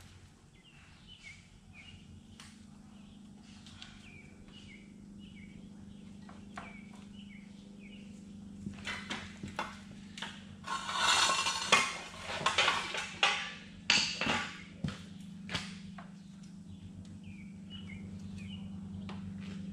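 Metal radiator brackets being handled, with a run of clattering and scraping in the middle. Birds chirp over and over throughout, over a steady low hum.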